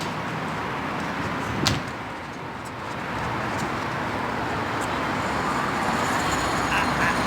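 Steady road-traffic noise, with one sharp knock about a second and a half in.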